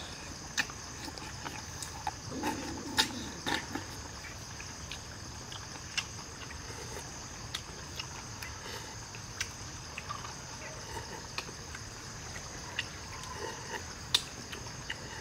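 Insects chirring steadily through the night, with scattered sharp clicks and slurps of someone eating grilled snails, sucking the meat from the shells; the loudest clicks come about three seconds in and again near the end.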